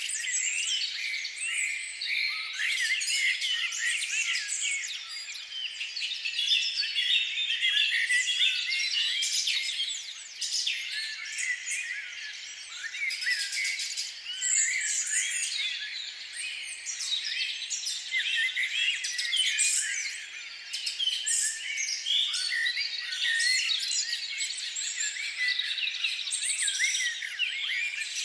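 Many birds chirping and chattering at once, a dense continuous chorus of short high calls with no pauses.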